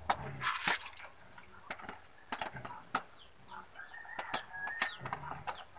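Chickens clucking in the background, with a few short, light knocks and clinks of a ladle and container at the cooking pot.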